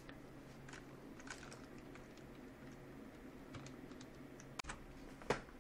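Faint, scattered clicks of computer keys, a few over several seconds with the sharpest near the end, over a low steady hum.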